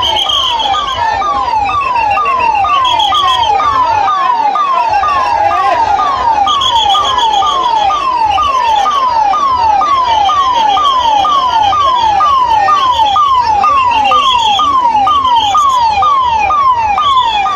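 A 108 emergency ambulance's electronic siren sounds continuously: a falling tone that repeats about two and a half times a second. A higher tone comes and goes over it.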